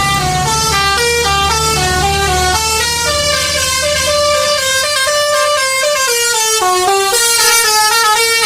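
Bus 'telolet' Basuri multi-tone air horn playing a fast tune, stepping from note to note about three or four times a second. A bus engine's low rumble sits underneath and fades out about halfway through.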